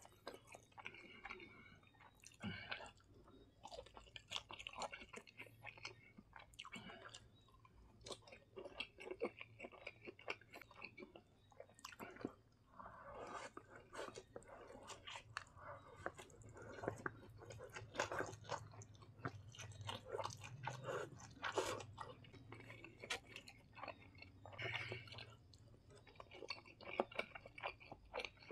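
Close-up eating sounds: a mouth chewing and slurping instant noodles, with many small wet clicks throughout and breathy slurps as noodles are sucked in.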